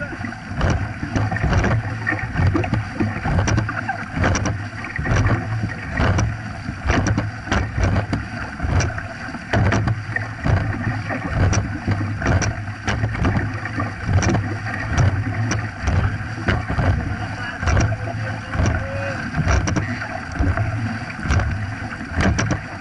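Dragon boat crew paddling hard: paddles catch and splash in a steady stroke rhythm of about one a second, over water rushing along the hull.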